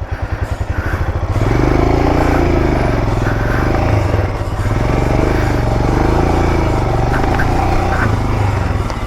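Motorcycle engine pulsing at low revs, then revving up about a second and a half in. The revs rise and fall repeatedly as the bike labours over rocks on a steep off-road trail.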